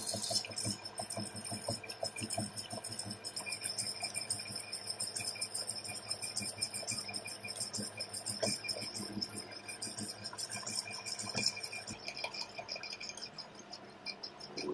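Metal lathe turning a steel shaft while the cutting tool machines a bearing seat: a dense, continuous metallic rattling and clinking of the cut with a faint high ringing, thinning out and getting quieter near the end.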